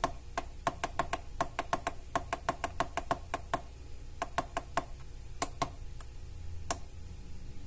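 Rapid clicking of the small push buttons on an ATORCH AT24 electric energy meter, pressed again and again to step through its settings menu and reset the energy count to zero. About four clicks a second for the first three and a half seconds, then a few scattered clicks.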